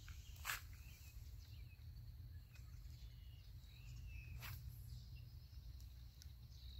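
Quiet pondside ambience: a low steady rumble with faint bird chirps, broken by two sharp clicks about half a second and about four and a half seconds in.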